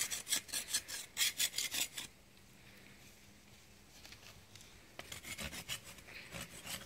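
Quick rasping scrape strokes against a wooden stick, about five a second for the first two seconds. They pause, then resume more faintly near the end.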